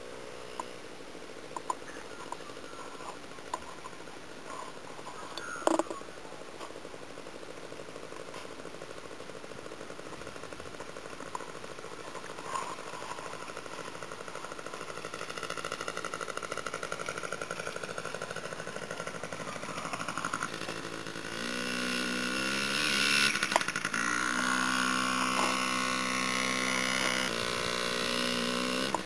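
Small child's dirt bike engine, faint at first, then louder from about two-thirds of the way through as it comes near, its pitch rising and falling as the throttle changes.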